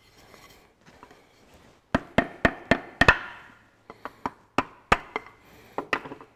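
Sharp wooden knocks as a hammer's wooden handle is driven against a connecting rod of a Ferguson 23C diesel engine, tapping the piston out of its bore. About a dozen irregular knocks, several a second, starting about two seconds in.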